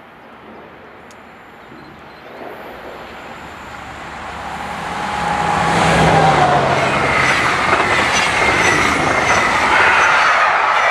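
A train approaching and passing close by: the rolling noise grows louder over about four seconds, then stays loud, with a high tone over the rush of the wheels on the rails.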